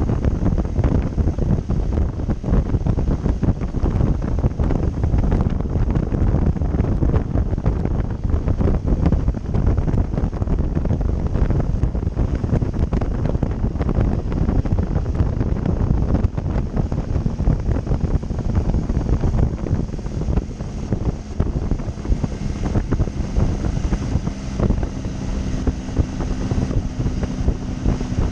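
Heavy wind buffeting on the microphone from riding a Triumph Tiger 800, with the bike's three-cylinder engine running underneath. A few steady engine tones come through more plainly near the end.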